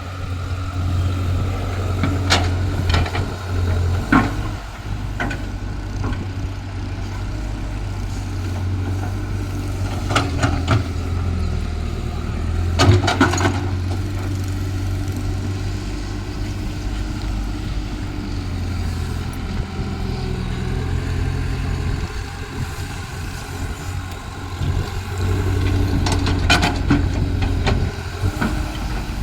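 Caterpillar excavator's diesel engine running steadily, its note shifting up and down as it works, with several sharp knocks through the clip.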